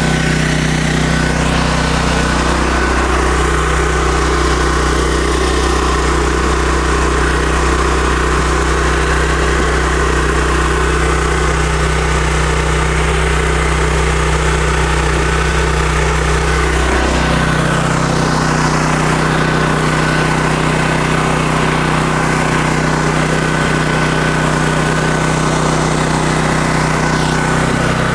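Black Max 7,500-watt gasoline generator with a Honda engine running steadily, with its low note shifting about seventeen seconds in.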